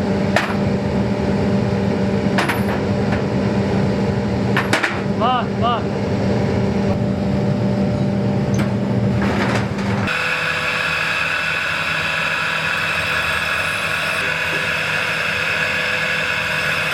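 Workshop machinery running steadily with a low hum, with a few sharp metal knocks and one ringing metal strike. About ten seconds in the sound changes abruptly to a different steady machine noise with a higher whine.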